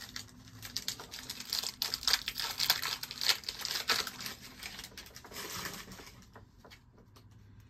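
Trading card pack's plastic foil wrapper being crinkled and torn open: a dense run of sharp crackles that thins out and fades after about five seconds.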